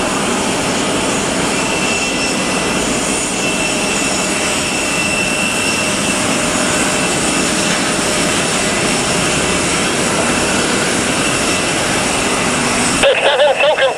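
Jet aircraft engines running, a steady rushing noise with a thin high whine. Radio speech comes in near the end.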